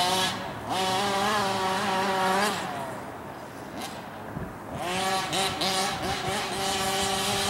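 Small two-stroke petrol engine of an FG large-scale RC monster truck revving up and holding a steady high buzz under throttle. It drops away for a second or two near the middle, then revs up and holds again.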